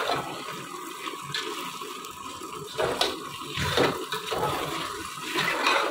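A metal fork stirring and scraping a thick, moist vermicelli-and-milk-powder mixture around an aluminium pot, a wet, noisy churning with a few louder scrapes about three and four seconds in and again at the end.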